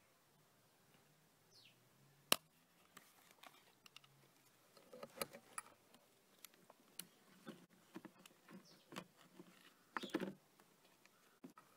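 Hands handling small plastic-and-metal portable cassette recorders: scattered light clicks, taps and knocks, the sharpest about two seconds in and a cluster of them about ten seconds in.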